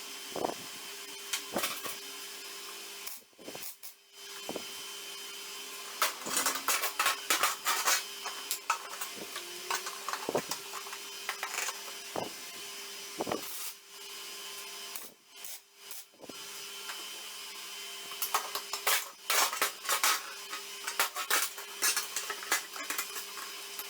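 A power tool running with a steady hum, with irregular scraping and clicking bursts as it works the material, and short pauses about three and fifteen seconds in.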